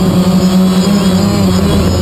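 DJI Phantom quadcopter's four motors and propellers humming loudly and steadily, heard from the GoPro mounted on the drone; the hum drops in pitch about halfway through as the motors change speed.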